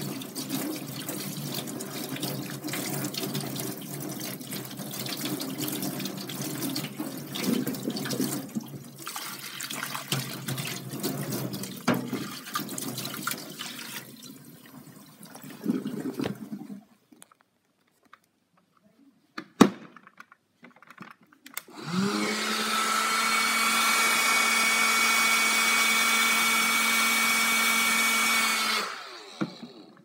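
Tap water running into a stainless-steel sink as a handheld vacuum's dust cup and filter are rinsed, for about the first half. After a pause with a single click, the freshly cleaned handheld vacuum cleaner's small motor starts and runs steadily for about seven seconds with a high whine, then winds down.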